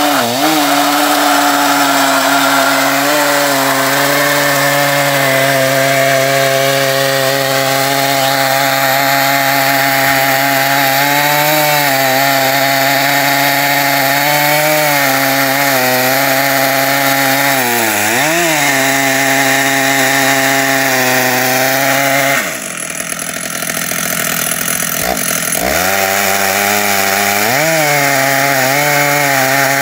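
Stihl chainsaw in a chainsaw mill ripping an ash log lengthwise, running at full throttle under load. Its pitch sags briefly now and then, and about two-thirds of the way through the sound drops away for about three seconds before the engine revs back up.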